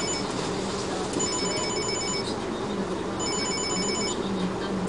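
Electronic warning beeper sounding rapid beeps in bursts of about a second, three bursts about two seconds apart, over the steady drone of heavy machinery.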